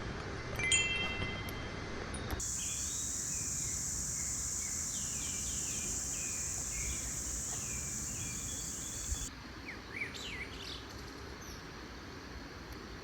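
Outdoor ambience in three abrupt cuts. First a few short bell-like chime tones, then a steady high-pitched hiss with birds chirping under it, and from about nine seconds in, bird chirps alone.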